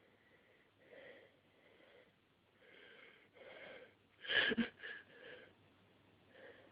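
A stuck sneeze: a run of short gasping breaths building toward a sneeze that never comes. The loudest is a sharp gasp about four seconds in, followed by two shorter ones.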